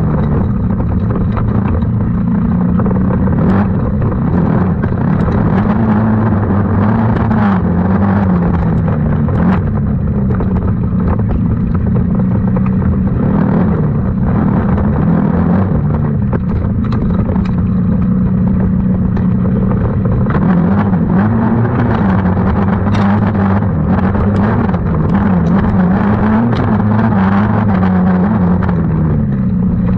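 Small 90 cc engine of a youth off-road race machine running hard, its pitch repeatedly rising and falling as the throttle is opened and closed. Scattered sharp knocks and clatter are heard over it.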